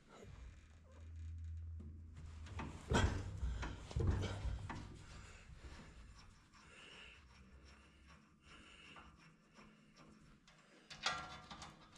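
A flat-blade screwdriver turning a screw set in a cast-iron plate: scraping of metal on metal, with a few sharp clicks about three and four seconds in and again near the end.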